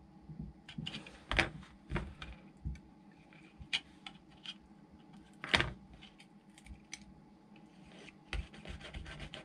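Scattered light taps and clicks as steel tweezers and a small plastic body part are handled on a cutting mat while a sticker is pressed on, the sharpest taps about a second and a half and five and a half seconds in.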